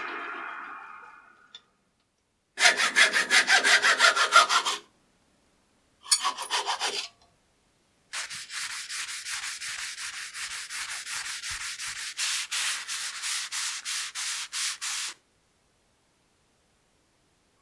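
Abrasive paper rubbed back and forth by hand on a freshly turned wooden chisel handle, in three bouts of quick, even strokes, the last and longest at about three to four strokes a second. At the start the wood lathe winds down and falls silent.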